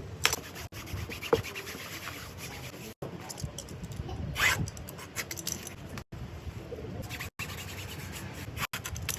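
Workshop handling noise from speaker manufacturing: rubbing, scraping and scattered clicks, broken up by several abrupt cuts, with a louder brief rush about four and a half seconds in.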